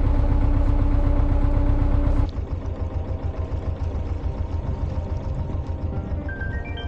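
An old narrowboat engine running steadily under way, a rhythmic low chugging. About two seconds in it drops abruptly to a quieter, thinner chug, and light music comes in near the end.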